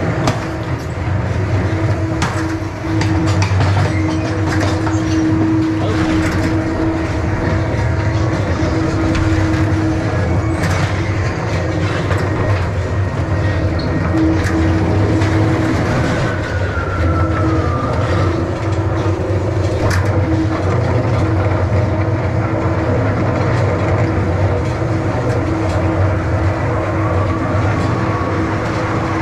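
Ghost train ride car rolling along its track: a steady rumble with clicks and rattles from the wheels, and a steady hum that comes and goes.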